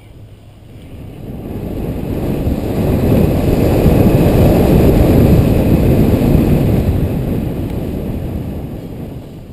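Wind buffeting a helmet-mounted camera microphone as a mountain bike gathers speed down a grassy meadow, mixed with the rumble of the tyres on the grass. The rush swells about a second in, is loudest in the middle and eases off near the end.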